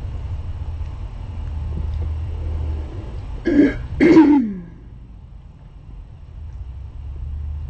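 A person clears their throat twice in quick succession about halfway through, the second rasp falling in pitch, over a steady low hum.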